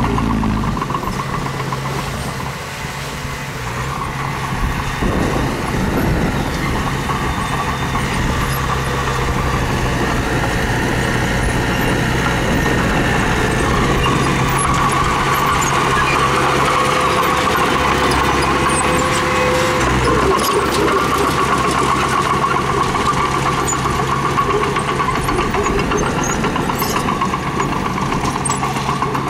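Mini bulldozer's diesel engine running steadily under work, its note shifting a few seconds in and again about two-thirds of the way through.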